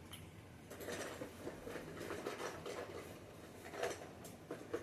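Small plastic fidget toys being handled: a run of light clicks and rustles.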